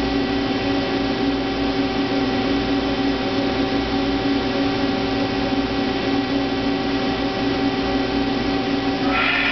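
Hyundai HiT-30M CNC turning center running, a steady mechanical hum made of several constant tones. Near the end a higher whine starts and rises in pitch.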